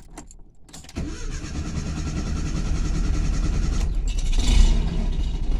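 Volkswagen Gol's carburetted 1.6 CHT four-cylinder engine being started from cold: a short crank, then it catches about a second in and settles into a steady run, with a brief rise in revs near the end.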